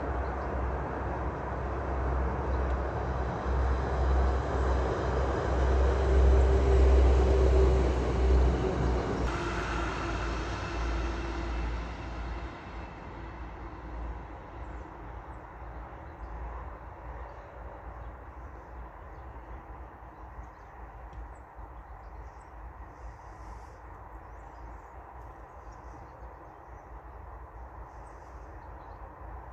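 Passenger train passing on the main line: a rumble that builds to its loudest about seven seconds in, then fades away as the train recedes. Faint bird chirps are heard once it has gone.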